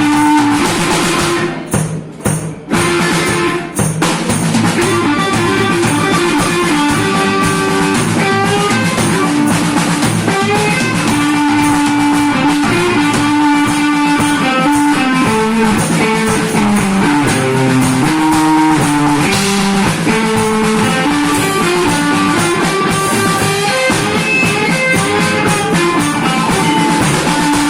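Rock band playing hard rock: a guitar melody over bass guitar and drum kit, with a few short stops where the band cuts out for an instant about two to four seconds in.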